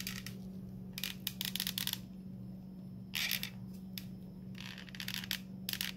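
Hot glue gun being worked to lay glue on a small plastic square: three short clusters of rapid clicking and plastic crackle, over a steady low hum.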